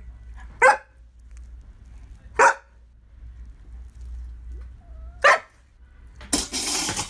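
A large husky-type dog giving three short barks, spaced about two seconds apart, followed by a brief rush of noise near the end.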